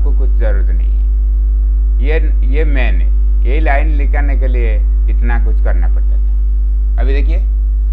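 Loud, steady electrical mains hum, the loudest sound throughout, with a man talking in short phrases over it.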